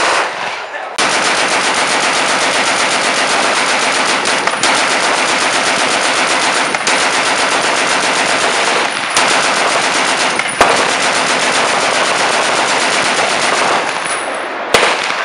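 Colt-Browning M1895 'potato digger' belt-fed machine gun firing one long full-auto burst of .30-06 rounds. It starts about a second in and stops near the end, followed by a single sharp bang.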